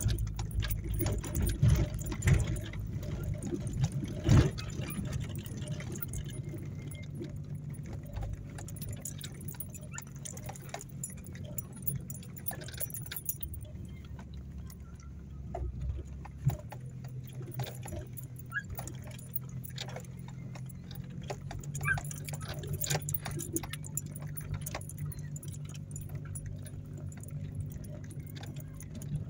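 Car engine running at low speed, heard inside the cabin while driving over a rough, rocky dirt road, with the interior rattling and jingling over the bumps. Heavier knocks from the bumps come in the first few seconds, and the engine's tone shifts about halfway through.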